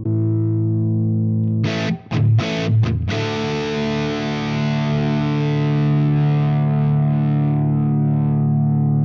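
Epiphone Korina Explorer electric guitar played with a distorted tone: a held chord, a few quick strummed chord hits about two seconds in, then a chord left to ring and sustain.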